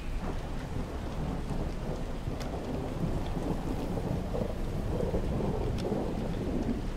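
Thunderstorm ambience: a low rolling rumble of thunder over steady rain, swelling a few seconds in, with a couple of faint clicks.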